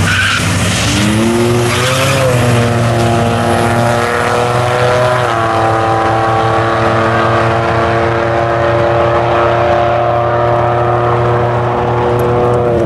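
Buick Regal drag cars launching and accelerating hard down a drag strip. The engine pitch climbs, drops back at upshifts about two and five seconds in, then holds nearly steady as the cars run on toward the finish.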